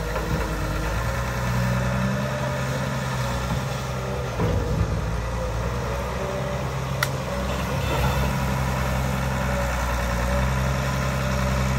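Long-reach excavator's diesel engine running steadily, its note swelling and easing as the hydraulic boom and bucket move. A single sharp click about seven seconds in.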